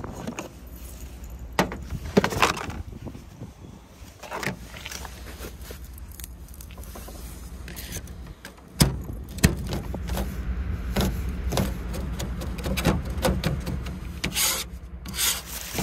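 Rummaging through a wooden drawer box of metal tins and utensils, with clinks and knocks, then a kitchen knife tapping and scraping on a plastic cutting board as garlic is chopped, with repeated short knocks. A low steady hum runs underneath.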